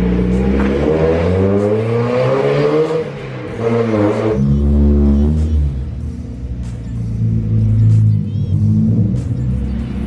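1991 Mazda Miata's 1.6-litre four-cylinder engine accelerating, its pitch rising steadily for about three seconds and climbing again briefly near four seconds before dropping to a lower, uneven run.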